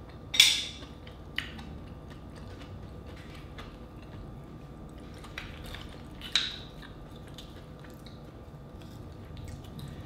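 Close-up chewing of mussel meat, with a few sharp clicks and clacks of mussel shells as they are picked from the platter and handled; the loudest clicks come about half a second in and again about six seconds in.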